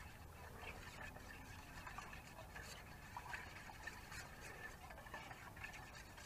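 A spoon stirring and scraping inside a small stainless-steel saucepan, mixing flour into milk for a thickener. It makes faint, irregular scratches and light clicks against the metal.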